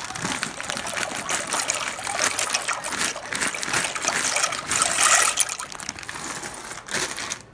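Dry penne pasta poured from its bag into a pot of hot water, splashing and clattering, loudest about five seconds in and cutting off sharply near the end.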